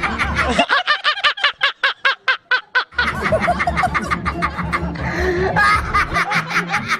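Rapid snickering laughter, a quick run of short "heh" bursts at about five a second, heard alone at first and then over background music from about three seconds in.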